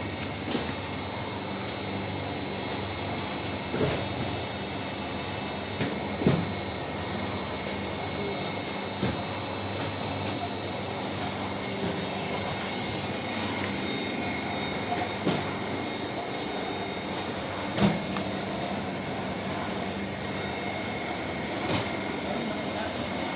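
Belt conveyor running steadily with a high, even whine, with a few separate thuds.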